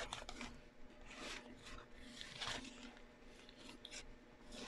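Faint rustling and scraping of Manila paper and drafting tools being handled on a table, a few soft short strokes spread through.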